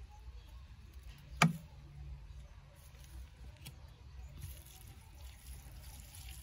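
A single sharp knock about a second and a half in, the loudest thing here. Then water trickles from a plastic bottle onto the soil of a garden bed.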